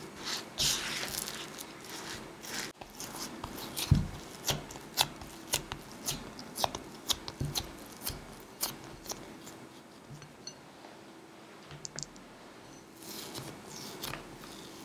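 A spatula cutting and pressing crumbly yakgwa dough in a glass bowl, with a run of sharp clicks and taps and one heavier thump about four seconds in. Softer handling follows as the dough is pressed together by hand.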